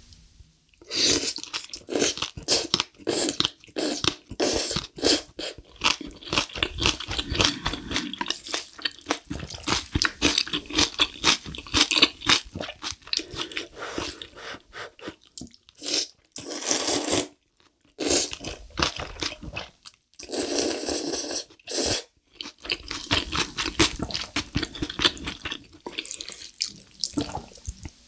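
Close-miked eating sounds of spicy black bean instant noodles: continuous chewing and mouth smacks, with a few longer slurps of noodles past the middle.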